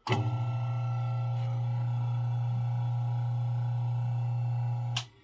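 General Electric 1/20 hp explosion-proof fan motor running with a steady electrical hum, its new bearings giving no bearing noise. The hum starts suddenly and cuts off suddenly near the end.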